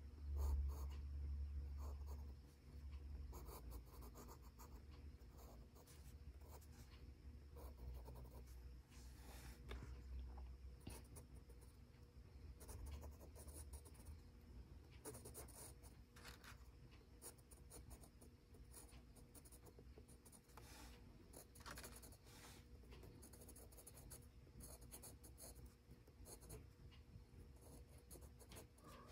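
Faint scratching of a Faber-Castell Pitt Graphite Matt HB pencil drawing on gray sketchbook paper, in short, irregular strokes. A low rumble sounds for the first couple of seconds, then fades.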